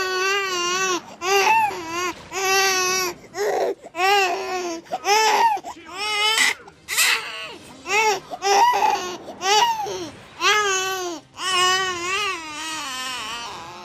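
Baby crying loudly in a string of wavering wails, each about half a second to a second long, broken by short gasps for breath.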